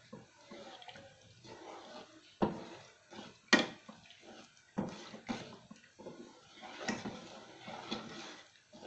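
A spoon stirring a pot of coconut-sugar and coconut-milk syrup over low heat, dissolving the sugar. Liquid sloshing and scraping, broken by several irregular knocks of the spoon against the pot, the loudest about three and a half seconds in.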